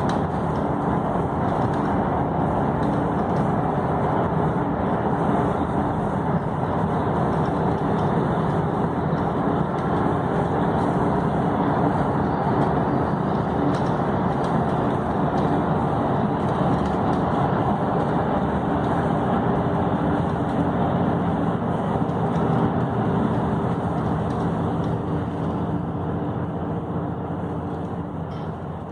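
Steady road noise heard from inside a vehicle travelling at highway speed: engine rumble and tyre noise. It fades out over the last few seconds.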